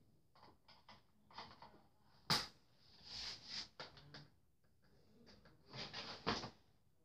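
Toy blaster and its box packaging being handled while it is freed from its twist-tie fastenings: scattered clicks and short rustles, with a sharp knock a little over two seconds in.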